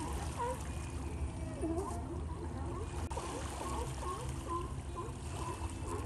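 A hauled-out colony of sea lions calling: many short, overlapping calls that swoop up and down in pitch, one after another without a break, over a low steady rumble.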